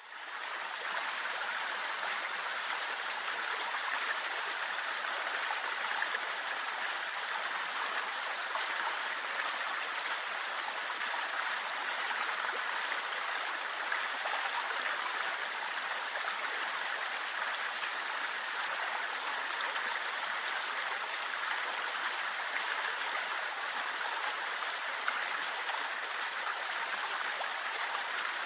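Waterfall: steady rushing water, fading in at the very start.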